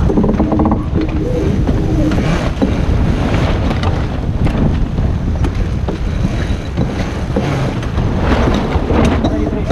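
Wind buffeting the microphone and water rushing past the hull of a Sydney 46 racing yacht under sail, a steady loud rush with scattered short knocks.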